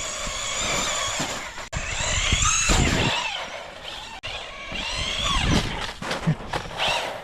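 1/14-scale electric RC truck's motor and gears whining, the pitch rising and falling several times as it speeds up and slows down. The sound drops out briefly twice.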